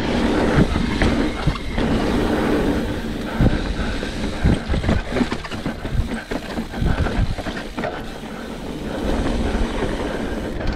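Mountain bike rolling over a dirt and rock trail: a steady rumble of tyres and drivetrain with irregular knocks and rattles from the bike as it rides over rocks and roots, the knocks thickest in the middle.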